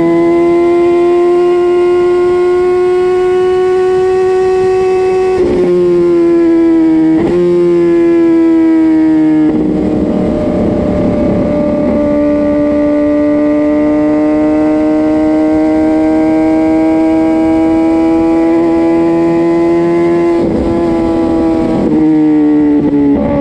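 Kawasaki ZX-10R inline-four superbike with a Spark full race exhaust system, heard close up while riding. The engine note climbs steadily and is broken by quick gear changes about five and seven seconds in. From about nine to twelve seconds the exhaust turns rough and uneven around a bend, then the engine pulls again with more gear changes near the end.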